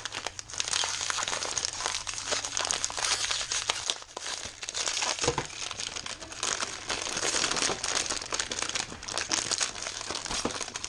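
Plastic packaging crinkling and rustling in hands as a small part is unwrapped, a dense, continuous crackle with a short pause about four seconds in.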